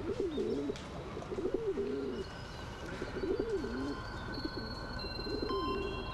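Pigeon cooing in about four low, wavering phrases, each under a second long. Faint steady high tones come in about two seconds in and shift pitch in steps.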